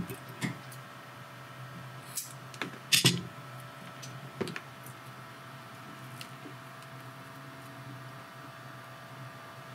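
A few light clicks and rustles of hands handling small drone parts and double-sided tape, the loudest about three seconds in, over a steady low hum; after about five seconds only the hum remains.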